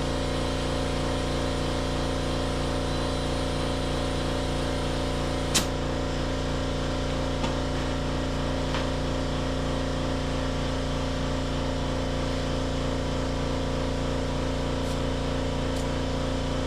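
Air compressor running steadily while a tire is inflated, with a sharp click about five and a half seconds in.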